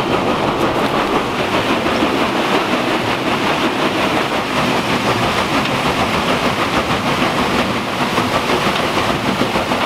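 Old mill water wheel turning under running water, a steady, loud splashing and rushing with a churning clatter.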